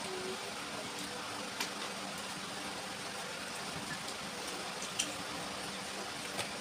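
A person eating chicken curry and rice: a few soft, wet clicks and smacks of chewing and handling food over a steady background hiss, the sharpest click about five seconds in.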